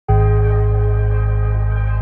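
Background music: a sustained organ-like chord that begins abruptly and holds steady.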